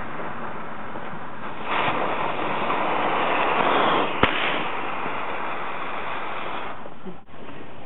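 Backyard fireworks going off: a louder hissing rush for about two seconds, then one sharp bang about four seconds in, over a steady hiss.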